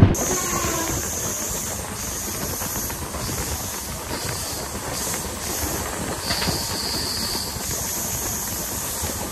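Saraighat Express passenger train running along the track: a steady rumble of wheels on rail with a high hiss that comes and goes every second or so.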